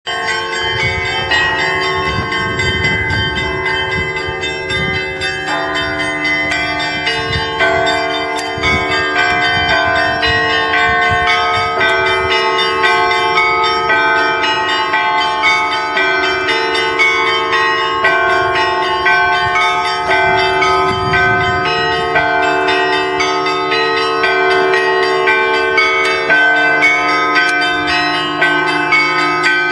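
Three church bells rung in a continuous peal, strokes following one another quickly so their tones overlap and ring on.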